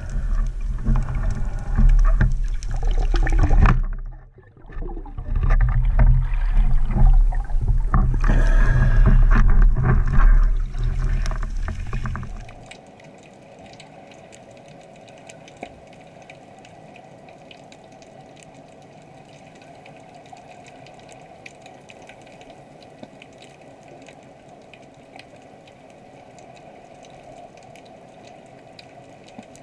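Underwater sound picked up by a camera in a waterproof housing. For about the first twelve seconds there is loud, deep water noise as the camera moves with the diver. It drops suddenly to a steady quiet underwater hiss with faint scattered crackling clicks.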